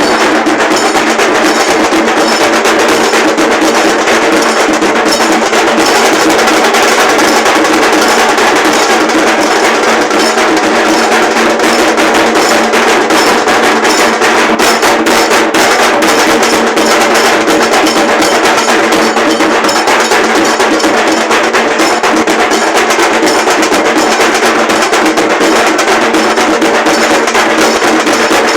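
A band of large dhol drums playing a loud, fast, continuous beat without a break.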